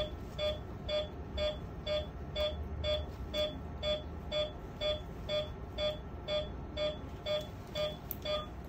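Anaesthesia monitor beeping in time with the anaesthetised dog's pulse: short, mid-pitched beeps about twice a second, perfectly regular, over a low room hum.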